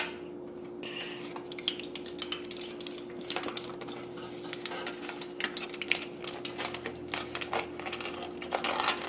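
Rapid, irregular crinkling and clicking of a small piece of material being folded and pressed into shape by hand, over a faint steady hum.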